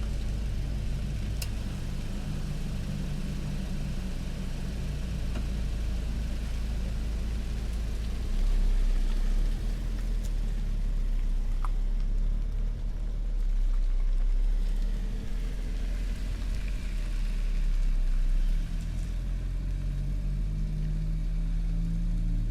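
A car engine running over a steady low rumble, swelling louder a few times as it picks up revs.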